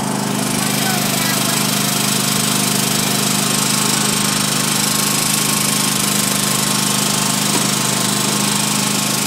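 Engine of the vehicle being ridden, running steadily at an even speed.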